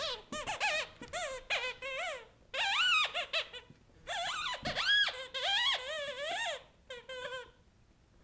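Squeaky toy chicken squeaking over and over as a puppy bites and chews it: quick runs of high squeals whose pitch swoops up and down, stopping about seven and a half seconds in.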